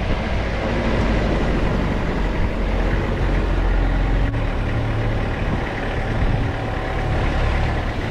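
Toyota Hilux 3.0-litre four-cylinder turbodiesel driving along a dirt track: steady engine and tyre noise, heard from a camera mounted on the outside of the body.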